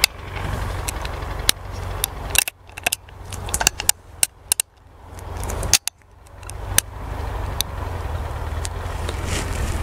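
Sharp metallic clicks and clacks of a single-action revolver's hammer and cylinder being worked by hand, about a dozen irregular clicks over the first seven seconds, over a steady low rumble.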